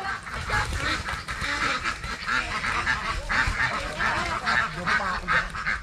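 Ducks quacking over and over, several calls a second, as from a flock.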